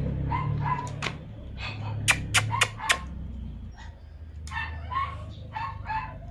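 Small dogs whimpering softly in short, scattered calls, with four sharp clicks in quick succession about two seconds in, over a low steady hum.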